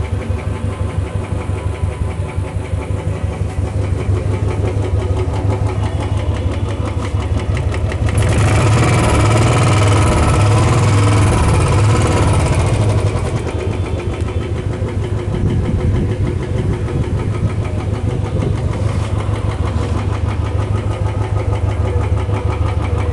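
Royal Enfield 350cc single-cylinder engine running with a rapid tapping noise. It is revved up for a few seconds about a third of the way in and then settles back to idle. The mechanic traces the noise to the timing gear.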